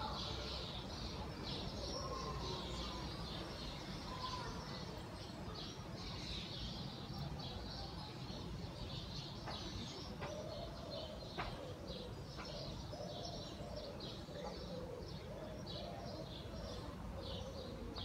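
A large flock of small birds chirping continuously, many short calls overlapping, over a steady low background rumble.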